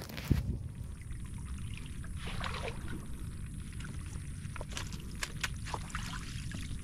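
Wind rumbling on the microphone, with splashes and drips of water near the end as a crab dip net is lifted out of shallow river water.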